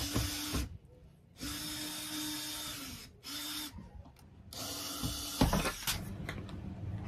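Cordless drill driving a bolt up through a wooden furring strip into a plusnut in a van's sheet-metal ceiling. It runs in four short bursts, the whine slowing as each one stops, because the bolt won't line up with the nut. A sharp knock comes about five and a half seconds in.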